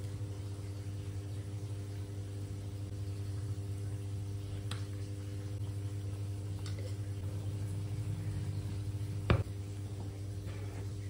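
Steady low electrical hum, with a few light taps as seasoning is spooned into a frying pan, and one sharp knock about nine seconds in as a spoon strikes the pan.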